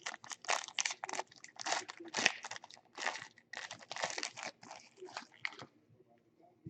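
Plastic wrapping on a trading-card box being torn open and crinkled in quick, irregular rustles that stop near the end.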